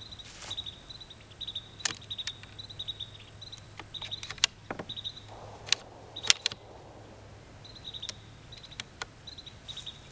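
Scattered sharp clicks from a Ruger 10/22 .22 rifle fitted with a Huntertown Arms Kestrel 556 suppressor, as it is fired with subsonic rounds and then unloaded, the loudest click about six seconds in. Behind them, insects chirp in a steady pulsing trill.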